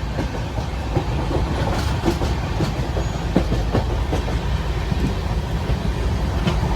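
Train running: a steady low rumble with irregular clacks and knocks from the wheels on the rails.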